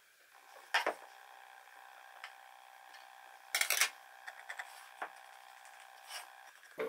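Pencil marking a line on a wooden board against a combination square: a sharp click as the square is set against the wood, a short scratchy pencil stroke about halfway through, and a few light ticks of the pencil and square.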